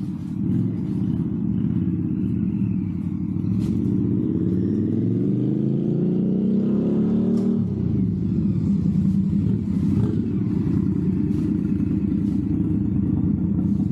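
Indian Scout Bobber Twenty's V-twin running through Tailgunner "Six Shooters" slip-on exhausts while the bike is ridden. The engine note climbs steadily as it accelerates, drops sharply at a gear change about halfway through, then holds steady.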